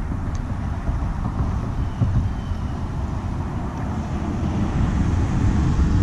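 Steady low rumble with a hiss above it, growing louder near the end.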